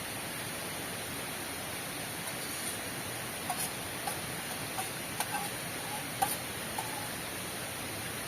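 Steady hiss of heavy rain, with a few sharp ticks scattered through the middle.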